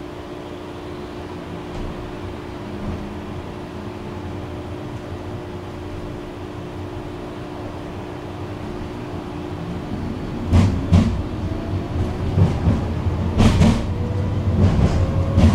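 Tram riding on its rails, heard from on board: a steady electric hum that slowly grows louder, then from about ten seconds in the wheels knock and clatter irregularly over the track, with a rising motor whine near the end.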